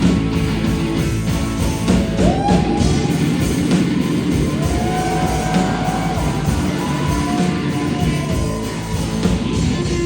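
Live rock band playing: a loud electric guitar with long notes that bend up and down in pitch, over drums.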